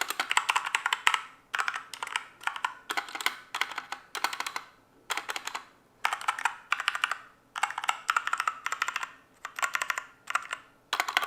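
Mechanical keyboard switches being typed on to show how they sound: quick runs of keystrokes, each run about a second long, with short pauses between them.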